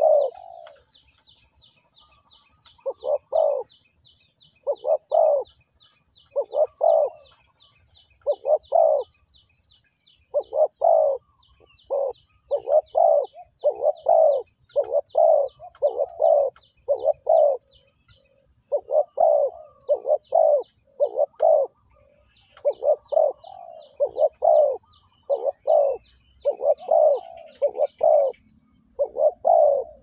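Spotted dove cooing: short, low, hollow notes in repeated groups of two to four, separated by brief pauses.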